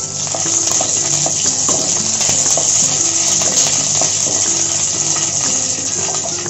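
Hot oil sizzling steadily in a kadhai, with many small crackles and pops as curry leaves and green chillies fry in a mustard-seed and cumin tadka, stirred with a wooden spatula.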